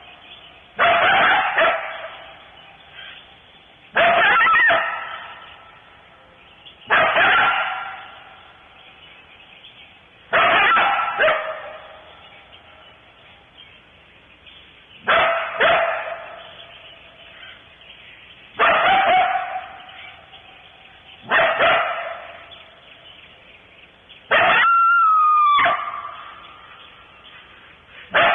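A coyote barking over and over, about one loud bark every three seconds, each bark trailing off in an echo. Near the end comes one longer, pitched bark-howl that falls away at its close.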